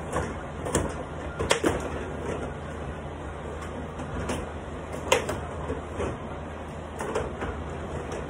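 Carrom bubble hockey table in play: irregular clacks and knocks as the control rods are pushed and spun and the plastic players strike the puck and the boards.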